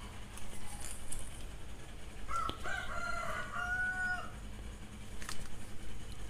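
A rooster crowing once, a stepped call about two seconds long starting a couple of seconds in. A sharp click follows about a second later.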